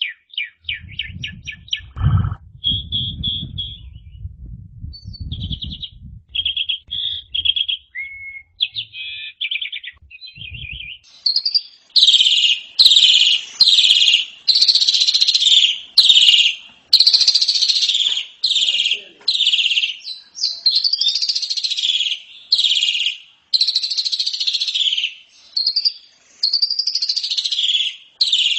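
Asian pied starling (jalak suren) singing: quick chattering notes and short trills, with a low rumbling noise underneath, then from about twelve seconds in a run of loud, harsh, rasping notes repeated about once or twice a second.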